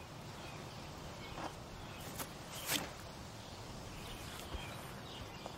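Quiet outdoor background with a few faint, short clicks scattered through it, the loudest a little under three seconds in.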